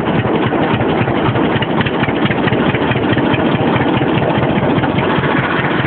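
1947 John Deere Model D's two-cylinder engine running at a fast idle with a steady, rapid firing beat, its throttle just opened a little.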